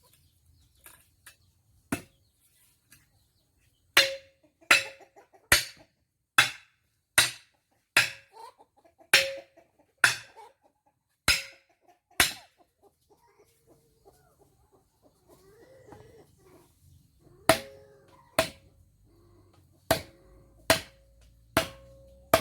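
Repeated sharp metal strikes, about one a second, each with a brief ring, as a hand tool is hammered or struck. They come in two runs with a pause in the middle, and chickens cluck faintly between them.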